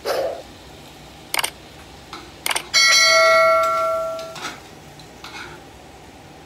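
Sound effects of a YouTube subscribe-button animation: a short pop, two clicks, then a notification bell chime that rings for about a second and a half and fades away.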